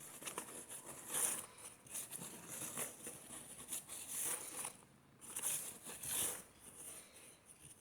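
Faint rustling and crinkling noises, a series of brief soft swells about once a second.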